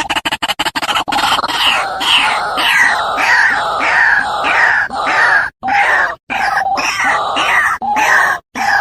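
White-breasted waterhen (ruak-ruak) calling: a fast rattle in the first second, then a loud run of repeated croaking notes, about three a second, each falling in pitch. The run is broken by a few short, sudden silent gaps.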